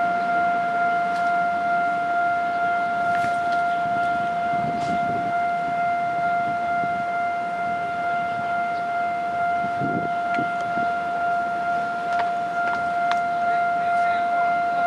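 Railway level crossing warning alarm sounding one steady, unbroken electronic tone, the signal that a train is about to pass and the barriers are down.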